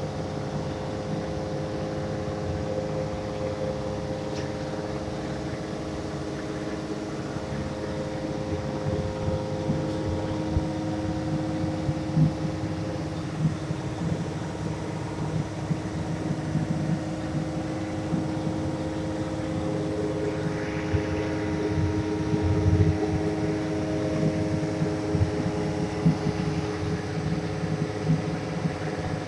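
A steady mechanical hum of several held tones over a rough low rumble. The tones shift about a third of the way in and again about two-thirds of the way in.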